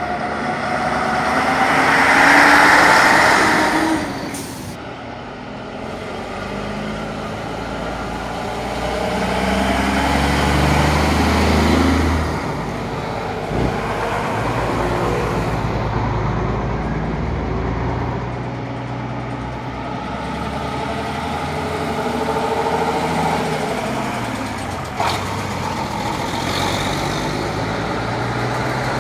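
Heavy diesel lorries, among them Scania and ERF trucks, driving past one after another, their engines swelling and fading as each one goes by.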